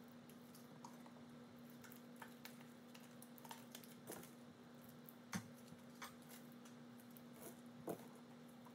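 Faint sticky clicks and squishes of glue slime being kneaded and stretched by hand, with two louder squelches about five and eight seconds in, over a low steady hum.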